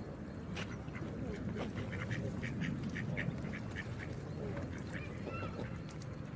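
Geese calling in a quick run of short, repeated honks, about three a second, with a couple of drawn-out calls later, over a steady rush of running water.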